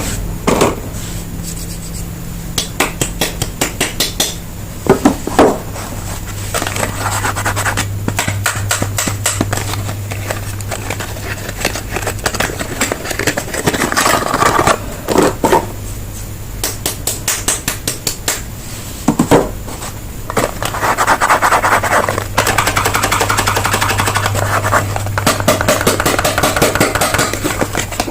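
Soap bars being unwrapped and handled: packaging rustling and scraping, broken by many sharp clicks and taps, with a denser rustle in the last third.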